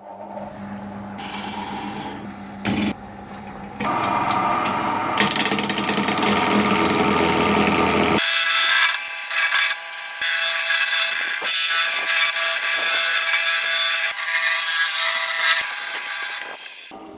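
Power tools cutting and shaping wood, in several stretches that change abruptly about 1, 4 and 8 seconds in. The loudest stretch, from about 8 seconds in, is a steady high whine of a fast-spinning tool with grinding noise.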